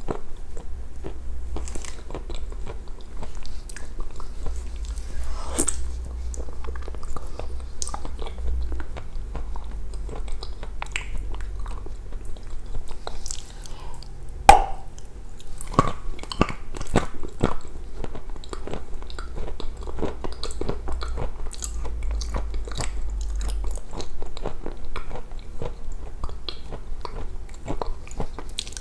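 Close-miked eating sounds: a person biting into and chewing a chocolate-coated treat, with many small irregular clicks and crunches and one sharp, loud click about halfway through.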